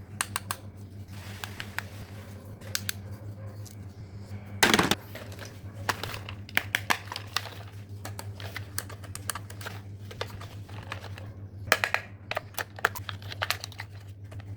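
Small hard plastic toys clicking and knocking as they are handled and rummaged through, with one louder knock and rustle about five seconds in, over a steady low hum.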